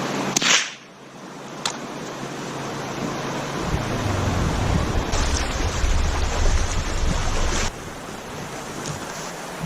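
Steady wind rushing over the microphone, with a brief burst of noise about half a second in and a faint click a little after. The low rumble of the wind grows heavier in the middle.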